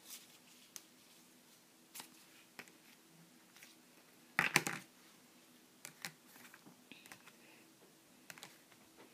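Scattered light clicks and rustles of trading cards and hard plastic card cases being handled and sorted, with a louder clatter of clacks about four and a half seconds in, over a faint steady hum.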